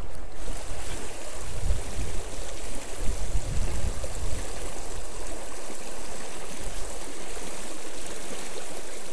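Small river running over rocks: a steady rush of flowing water. Low rumbles of wind on the microphone come and go from about one to four seconds in.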